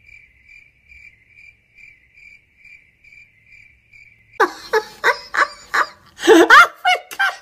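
Crickets chirping, a faint high chirp pulsing about three times a second. After about four seconds it stops and a child's loud voice breaks in with rising and falling cries.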